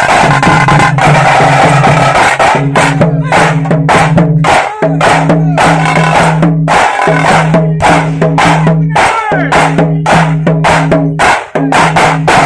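Tiger baja street drum band: large double-headed bass drums and small side drums beaten with sticks in a fast, loud, driving rhythm, with short breaks in the pattern about five seconds in and near the end.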